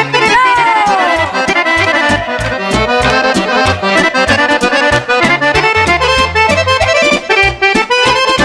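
Live folk band playing an instrumental passage: an accordion carries the melody over a steady drum beat and a pulsing bass. A high note slides down in pitch during the first second.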